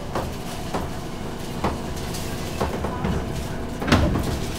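Running sound heard inside a JR East 201 series commuter train as it slows along a station platform: a low rumble with single wheel clicks over rail joints that come further apart as it slows. The loudest click is near the end.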